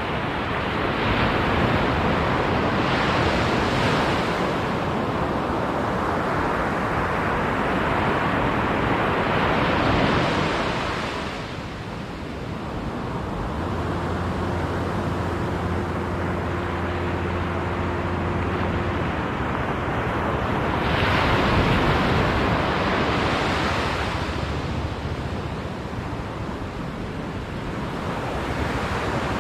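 Sea waves breaking on a beach, the surf swelling and ebbing in several surges, with wind buffeting the microphone. A steady low hum joins in for about five seconds midway.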